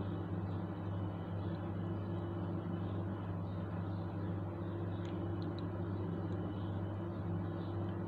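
Steady low machine hum, a motor or appliance running with a constant pitch and no change in level.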